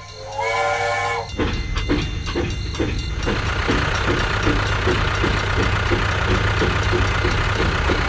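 Battery-powered toy steam locomotive sounding its electronic whistle once, a pitched toot of about a second, then its chugging sound effect: a steady beat of about three puffs a second over a low motor hum.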